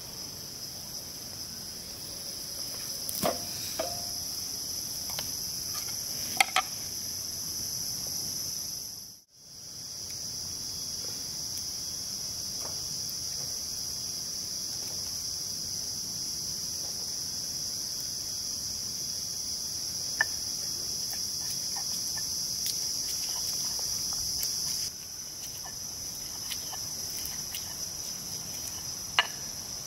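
Steady, high-pitched chorus of forest insects, dropping out for a moment about nine seconds in. A few light clicks and knocks from ingredients and cookware being handled.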